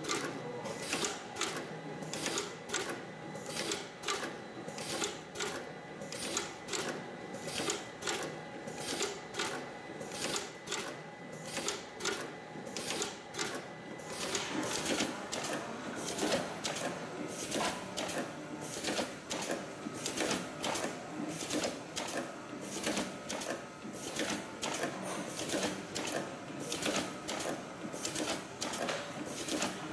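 Sunjin SM SC-2400 lipstick labeling machine running: an even, rhythmic clatter of mechanical clicks, several a second, as the tubes are indexed and labelled, over a faint steady whine. The clicking grows denser about halfway through.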